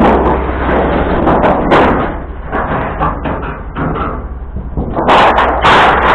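Scrap metal being handled and loaded: a run of clanks, knocks and clattering, loudest about five to six seconds in, over a low steady hum.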